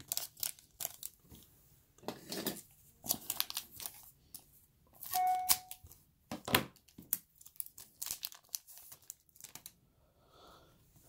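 A stubborn foil trading-card pack being torn open, its wrapper ripping and crinkling in a run of short, irregular crackles.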